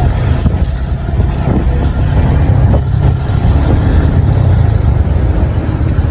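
Motorcycle engine running steadily while the bike is ridden, a constant low rumble.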